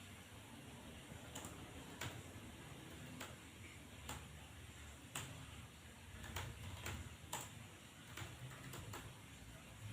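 Single keys being pressed on a computer keyboard during a typing drill: sharp, isolated clicks at an uneven pace of about one a second, a few closer together, over a faint low hum.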